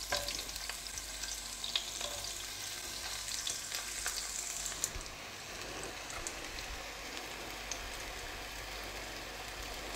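Quince slices sizzling steadily as they fry in melted fat in a frying pan, with a few faint clicks over the sizzle.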